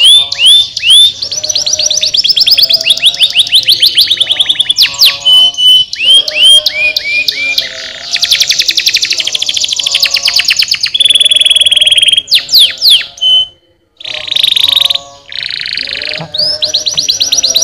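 Domestic canary singing fast, loud trills and rolls, switching from one repeated phrase to another every second or two, with a brief break about two-thirds of the way through.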